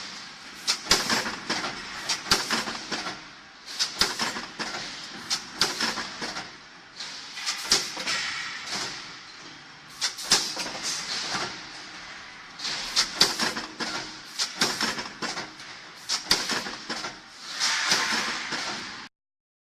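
CNC flat-bar punching and shearing line working: clusters of sharp metal punch strokes every few seconds, with hissing between them. The sound cuts off abruptly near the end.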